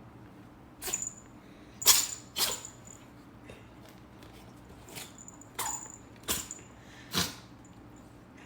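About seven sharp clicks or knocks at irregular intervals, several with a brief high ring after them.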